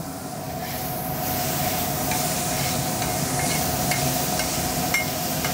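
Marinated skirt steak with peppers and onions sizzling on a flat-top griddle, a steady hiss that swells over the first second. Scattered light clicks come from about two seconds in as a metal spatula works the meat.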